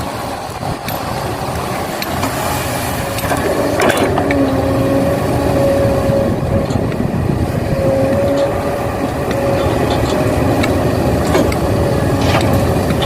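Excavator at work loading soil: the engine runs steadily with a whine in the middle stretch, and there are a few sharp knocks, one about four seconds in and a couple near the end.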